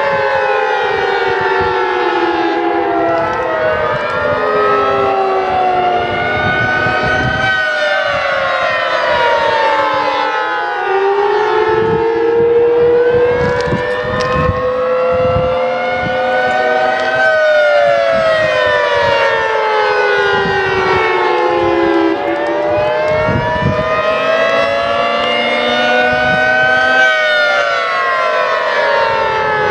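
Federal Signal 3T22 dual-tone, 10/12-port rotating civil-defense siren sounding the attack signal: a chord wailing slowly up and down, about three rises and falls, with heavy echoes.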